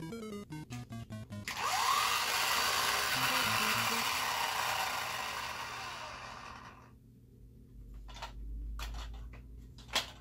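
Background music for about a second and a half, then a loud rushing noise that lasts about five seconds and fades away. Near the end come a few sharp clicks of plastic toy parts being handled.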